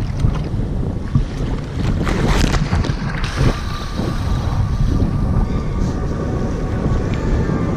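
Wind buffeting the microphone in a steady low rumble, with choppy seawater slapping and splashing against an inflatable boat's tubes a few times.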